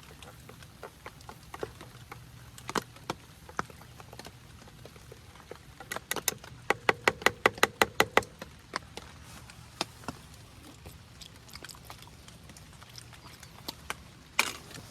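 Rain dripping in scattered, irregular ticks. About six seconds in comes a quick, even run of about a dozen sharper clicks.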